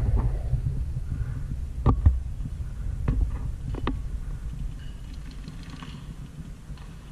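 Paintball fire: about five sharp pops in the middle, over a low steady rumble that fades toward the end.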